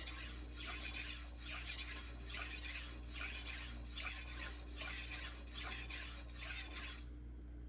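Steel knife blade being stroked back and forth on a wet 800-grit Juuma Cobalt Blue waterstone: an even rasping scrape in steady strokes a little faster than one a second, stopping about seven seconds in. The edge is being worked to raise a burr.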